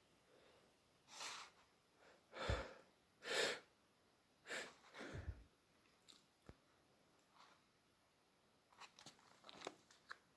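A person sneezing. Several short, sharp breaths build up to the loudest burst about three and a half seconds in, followed by a few quieter breaths and faint clicks.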